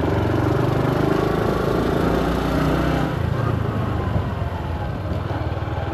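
Vehicle engine running steadily while under way, with road and wind noise over it.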